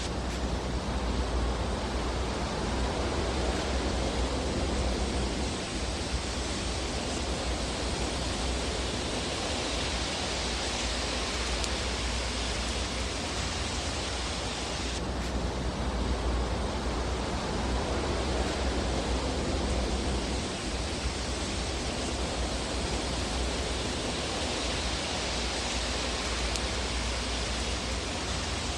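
Fireplace ambience of a burning fire heard as a steady, even rushing hiss, swelling and easing slowly, with no distinct crackles or pops standing out. The tone changes abruptly about halfway through.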